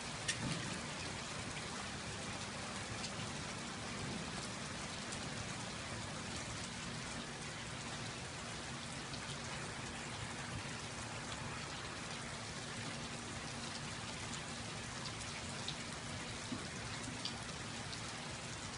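Steady rain falling, an even hiss with scattered faint drop ticks, over a faint steady low hum.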